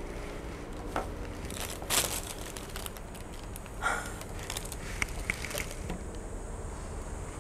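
Tissue paper and cotton stuffing being handled during an unwrapping, rustling and crinkling in a few short bursts, the loudest about two seconds in, with small scattered crackles later on.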